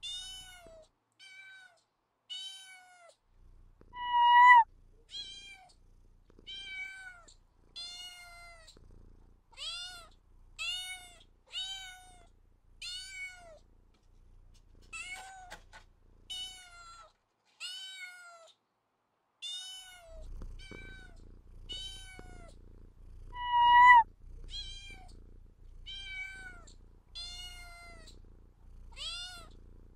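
A cat meowing over and over in short, arching meows, about one a second. Two of the calls are louder and higher, one about four seconds in and one about twenty-four seconds in. A low rumble runs underneath for much of it.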